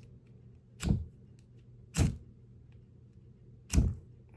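Fire striker on a paracord bracelet scraped three times, each a short, sharp rasp, as he tries to throw sparks.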